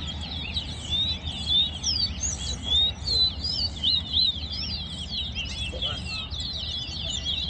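Caged towa-towa finches singing in a song competition: a fast, unbroken twittering warble of quick whistled notes that rise and fall, some sharper and louder than the rest.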